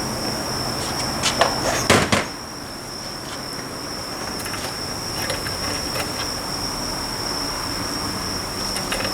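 Metal parts of a stripped-down differential being handled, a cluster of clicks and clanks about one to two seconds in and a few lighter clicks later, over a steady high-pitched tone.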